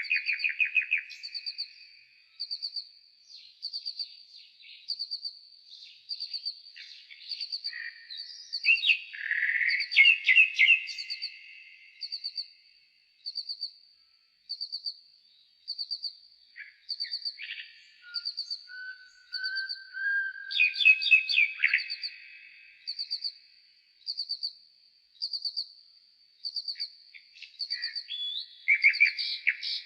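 Nightingale song slowed down four times: phrases of rapidly repeated notes, the loudest ones near the start, about a third and two thirds of the way through, and near the end. Under them a short high chirp repeats steadily, a little faster than once a second.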